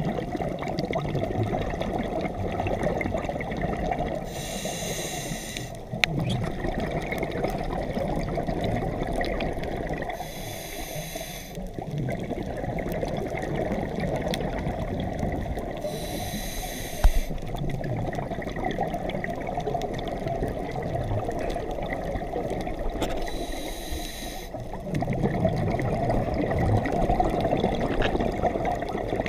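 A scuba diver breathing through a regulator underwater: a high hiss comes back about every six seconds, four times, alternating with a rumbling rush of exhaled bubbles. There is one sharp knock about seventeen seconds in.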